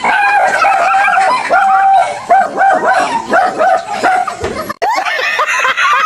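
A dog barking in a fast run of short, high yaps, followed about five seconds in by people laughing.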